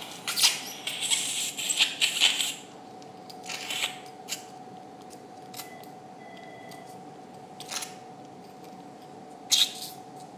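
Surgical suction and metal instruments at work in a bleeding nasal cavity: hissing, slurping bursts of suction in the first few seconds and again briefly, then a few sharp clicks of steel instruments over a steady hum.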